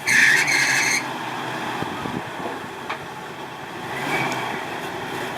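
Off-road Jeep working a rock ledge: a loud harsh burst during the first second, then the engine running steadily under load, swelling slightly about four seconds in.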